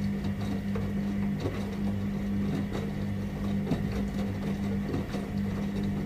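Whirlpool top-loading washing machine running its wash cycle: a steady low motor hum with faint scattered clicks.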